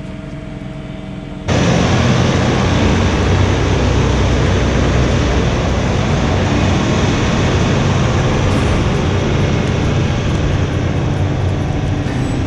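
John Deere 3046R tractor's diesel engine running steadily, heard from inside the cab. About a second and a half in, it gives way abruptly to a louder, steady rushing noise with a low hum underneath.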